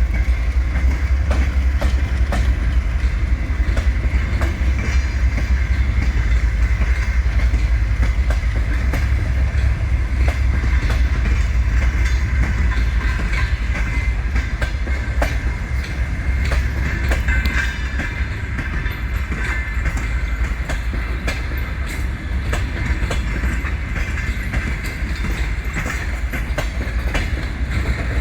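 Passenger train rolling past, its wheels clicking over rail joints above a heavy low rumble, easing off slightly in the second half.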